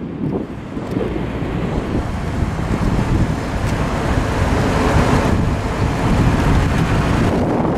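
Porsche 944 inline-four engine running under way, with heavy wind buffeting on the microphone and tyre and road noise.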